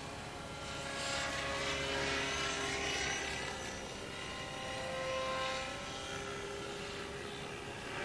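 Radio-controlled model helicopter flying: the whine of its motor and rotor blades glides up and down in pitch as it moves about, swelling louder about two seconds in and again about five seconds in.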